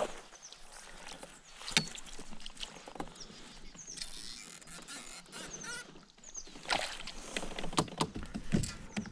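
Irregular knocks and handling noises aboard a small fishing boat on the water, with short high chirps repeating every few seconds.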